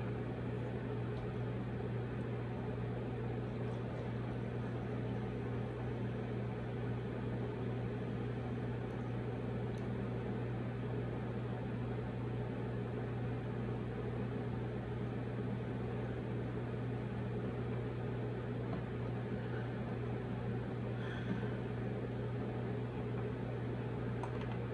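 Steady low hum with an even hiss over it, like a fan or appliance running, unchanged throughout; a couple of faint ticks late on.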